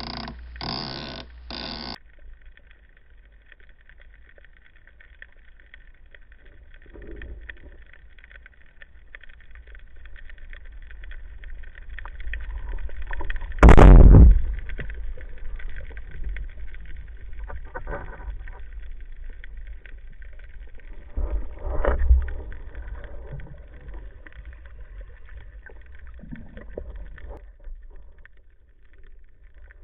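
Underwater water rumble, broken about fourteen seconds in by one loud, sharp shot from an Omer HF 95 speargun, with a few smaller knocks later.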